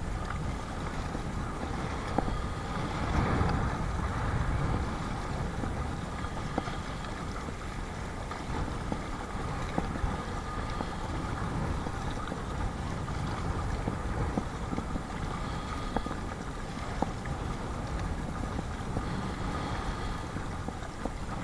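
Strong wind buffeting the microphone with a steady low rumble, over water splashing around a Perception Sound 10.5 sit-on-top kayak being paddled through whitecapped chop. Occasional short sharp knocks stand out.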